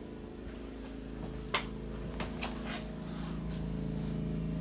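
A steady low mechanical hum that grows slightly louder in the second half, with a few light clicks, the sharpest about a second and a half in.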